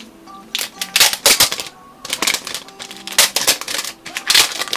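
Bursts of clicking and crackling from handling a new Apple wired keyboard, about four quick clusters a second or so apart, over faint background music.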